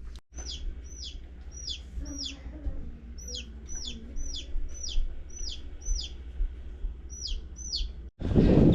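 Young chicks peeping: a steady run of high peeps, each sliding downward in pitch, about two a second.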